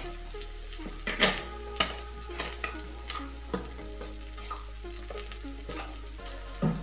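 Onion and tomato masala frying in oil in a non-stick frying pan, sizzling steadily, with several sharp clicks scattered through it. The coriander, chilli and turmeric powders have just gone in.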